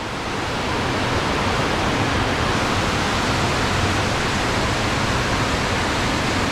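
Loud, steady rush of fast-flowing water running high after a storm.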